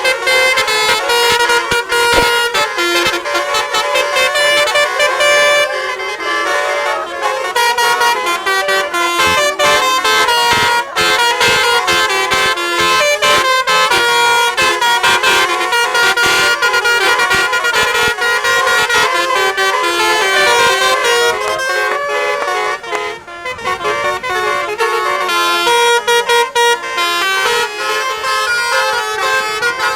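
Basuri 'telolet' multi-tone bus horn playing a loud, fast melody of short stepped notes, several horn tones sounding together, with a brief break about three-quarters of the way through.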